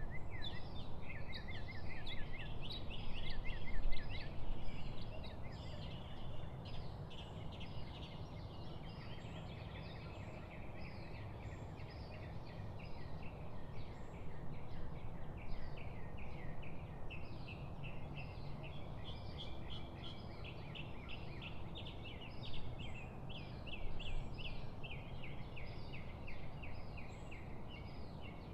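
Songbirds singing in a dawn-chorus mix, with rapid trilled runs of short repeated notes, over a steady low background rumble.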